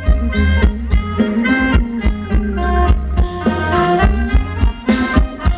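Live Thai ramwong band playing an instrumental break: a reedy khaen melody over a steady drum beat of about four strokes a second, with a heavy bass drum.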